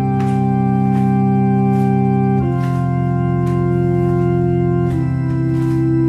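Background music of slow, sustained organ chords, moving to a new chord about every two and a half seconds.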